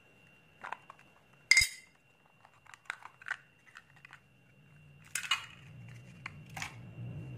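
Clear hard-plastic case being opened and a digital tasbih counter lifted out of it: a series of sharp plastic clicks and clinks, the loudest about one and a half seconds in, with a faint steady high whine underneath and low handling rumble in the second half.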